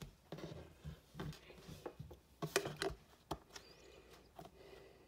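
Faint clicks and light taps of small plastic LEGO minifigure parts being handled, as a microphone accessory is pulled from a figure's hand; a few sharper clicks come near the middle.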